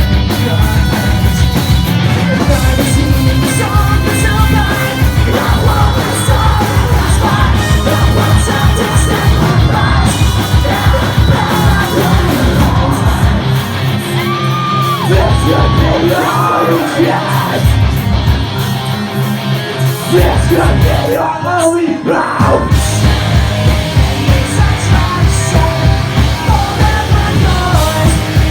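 Post-hardcore band playing live: distorted guitars, pounding drums and screamed and sung vocals. The drums drop out for a thinner passage around the middle, then the full band returns.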